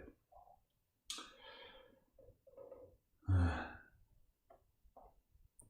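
A man breathing close to the microphone, with a short sigh about three seconds in and a few faint clicks near the end.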